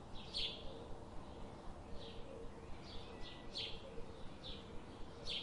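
Graphite pencil scratching on paper in a series of short strokes, about seven in a few seconds, as short lines are drawn. A faint steady hum lies under them.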